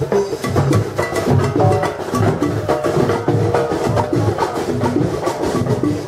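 Marching band playing: trombones and a sousaphone hold a melody over snare drums, hand drums and crash cymbals keeping a busy, even beat.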